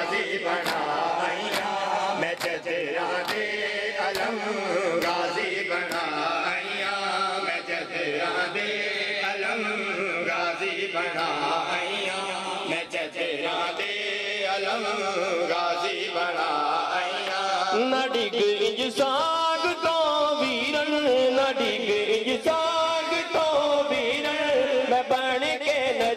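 Shia mourners doing matam: a noha chanted in voices over rhythmic open-hand chest-beating slaps, about three slaps every two seconds, clearest in the first third. From about two-thirds of the way through, a sung voice with long, wavering held notes comes to the fore.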